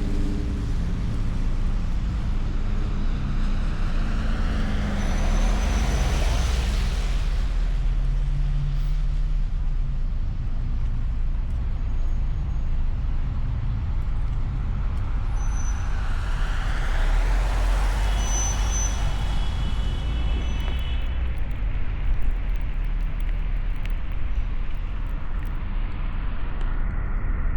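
Car driving on a snowy road: a steady low road and engine rumble. Two passing vehicles swell up and fade away, one about five seconds in and one about eighteen seconds in.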